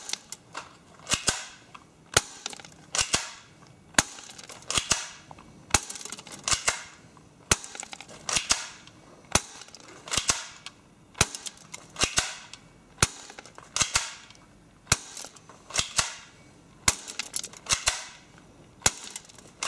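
HFC HA117 spring-powered BB pistol fired repeatedly through a chronograph, about one shot a second. Each shot is a sharp snap with a short ringing tail. The gun is shooting in the high 230s to low 240s fps.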